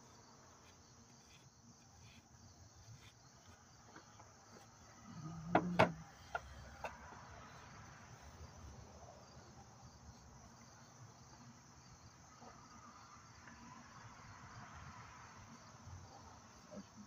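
Insects, likely crickets, chirring steadily in a high continuous band. A brief clunk stands out about six seconds in, with a few faint clicks.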